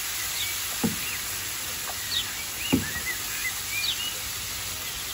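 Sliced onions and spices frying in oil in a frying pan, a steady sizzle with small crackles, stirred with a wooden spatula that scrapes the pan with two louder strokes, about a second in and near three seconds in.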